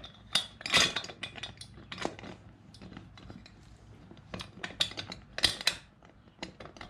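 Stainless steel transom wheel bracket handled during a test fit: its ring-pull locking pin and the wheel leg worked by hand, giving a run of irregular metal clinks and rattles, loudest about a second in and again around five and a half seconds in.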